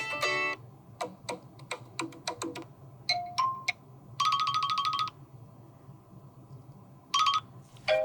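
Apple iPhone SE 2022 built-in ringtones previewing through the phone's speaker: short electronic melodic phrases of plucked notes and chimes, with a fast ringing trill about halfway through that comes back briefly near the end.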